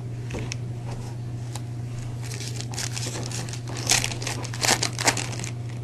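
Foil trading-card pack wrapper crinkling and tearing as it is handled and opened, in a cluster of crackles that peaks about four to five seconds in.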